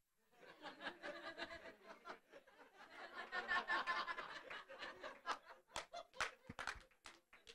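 Small audience laughing faintly at a joke, the laughter swelling in the middle and thinning out, with a few sharp claps near the end.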